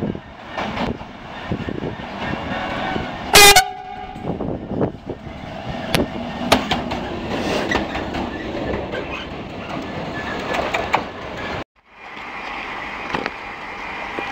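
Class 77 diesel locomotive approaching and passing, giving one short loud horn blast about three seconds in, then rolling by with engine and wheel noise over the rails. The sound cuts off abruptly near the end.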